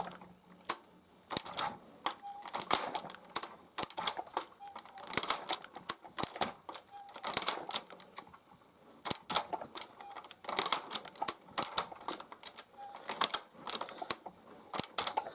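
Tippmann Boss hand-lever leather stitcher sewing through leather: repeated sharp mechanical clacks and rattles, a group with each stroke of the handle, roughly one a second. The machine is stitching but is out of adjustment, throwing extra thread loops.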